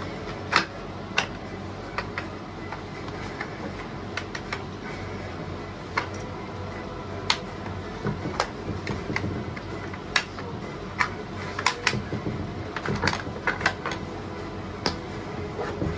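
Hard plastic pencil box being handled: irregular sharp clicks and snaps as its push-buttons are pressed and its compartments and flaps are opened and shut. The clicks come in clusters, thickest in the second half, over a steady background noise.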